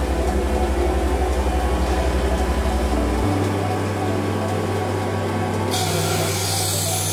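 Abrasive cut-off wheel of a PACE MEGA-T250S metallographic cutter spinning at about 3500 rpm with coolant spraying over it. About six seconds in, a high hiss comes in as the wheel starts cutting into the clamped metal sample. A low pulsing beat runs underneath throughout.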